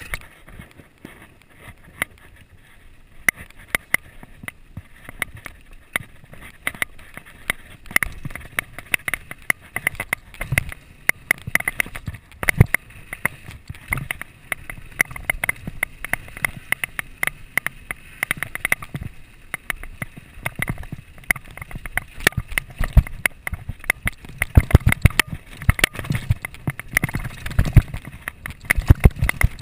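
Downhill mountain bike rattling down a rough gravel and dirt trail, picked up by an action camera worn by the rider: a constant patter of small clicks and knocks, with heavier thumps over bumps. It grows louder and busier from about eight seconds in.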